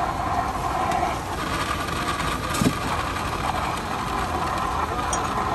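Electric juice blender running steadily, a continuous motor hum, with a short knock about two and a half seconds in.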